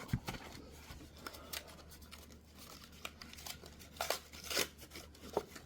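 Paper or plastic packaging being handled and rummaged through, crinkling and tearing in short irregular rustles with a few light clicks.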